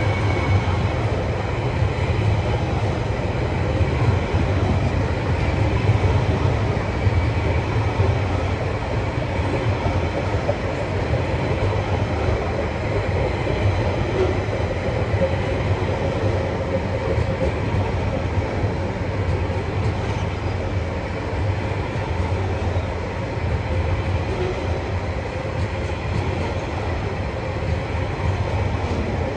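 Container flat wagons of a freight train rolling past, a steady rumble of steel wheels on the rails.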